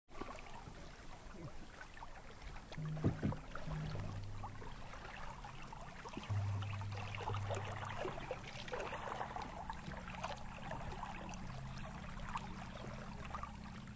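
Water lapping and trickling around a wooden canoe as it moves through the water, with a fine crackle of small splashes. Underneath are low held tones that step to a new pitch every second or two.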